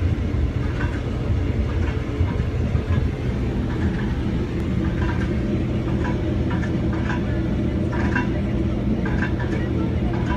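Link-Belt 218 crawler crane's diesel engine running steadily under load as it lifts a pipe pile, a constant low engine drone with no hammer blows.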